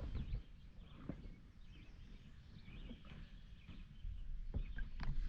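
Quiet outdoor lake ambience with faint bird chirps and a few light clicks near the end.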